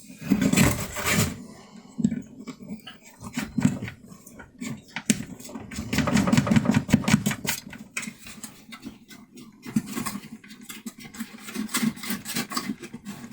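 Clicks, taps and rustling of hands working the plastic parts and wiring of a USB power port as it is fitted into a camper wall, with louder stretches of handling noise near the start and about halfway through.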